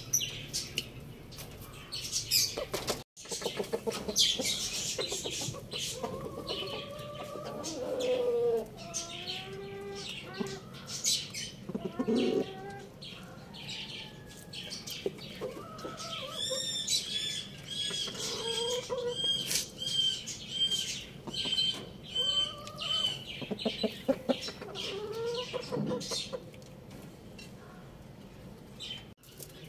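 Chickens making short clucking calls, over a scatter of clicks and scratches from pecking at the dirt-and-straw floor. In the middle comes a steady series of high chirps.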